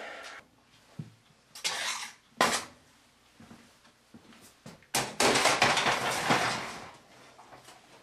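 Hard clattering and knocking of sample holders being handled on a metal scent-screening rack: a few separate knocks in the first seconds, then about two seconds of dense rattling starting about five seconds in.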